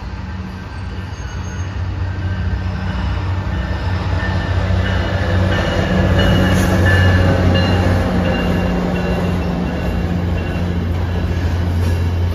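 A train passing close by, its running noise building over the first several seconds to a loud peak about seven seconds in. Under it runs a steady low hum, with faint high squealing in the middle.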